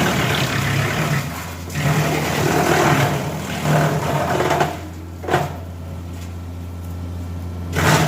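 Tractor-driven Titan wood chipper running at speed, with repeated bursts of loud shredding as branches are fed through it, over the steady hum of the engine.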